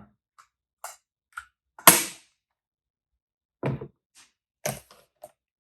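Handling noise from film cameras being picked up and set down: a few scattered clicks and knocks, with one loud sharp click about two seconds in.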